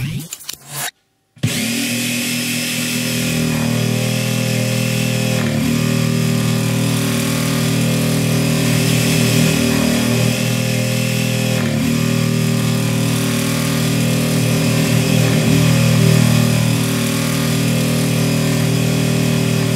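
Electric jigsaw sawing a straight cut through a white laminated shelf board, starting about a second and a half in and running steadily at an even speed.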